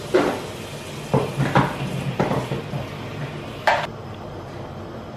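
Tap water running into a stainless steel pot while peeled potatoes are rinsed in it, with several knocks and clinks of the pot and potatoes. About three and a half seconds in there is a sharp metallic clink, and the hiss of the water drops away.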